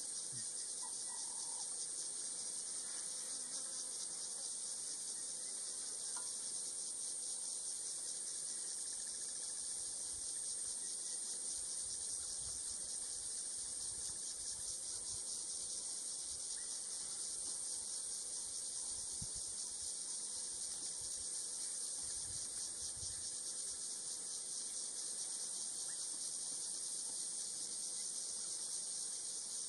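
Steady, high-pitched chorus of trilling insects.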